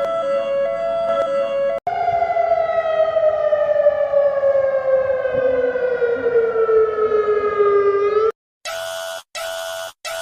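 Synthesized emergency-alert alarm tones. A steady two-pitch warble stops just under two seconds in, and a long tone then slides slowly downward in pitch for about six seconds. After a short break come harsh buzzing beeps, about three every two seconds.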